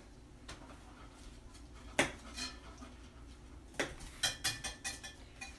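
A paring knife tapping through broccoli stems onto a plastic cutting mat. There is one sharp tap about two seconds in, then a quick run of taps near the end.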